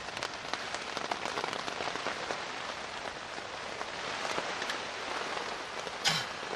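Steady storm rain, a dense hiss of many small drop hits. A brief louder noise stands out about six seconds in.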